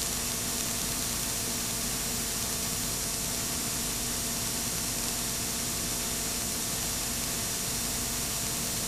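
Steady hiss with a few faint steady hum tones from a blank stretch of videotape: the playback has no recorded signal.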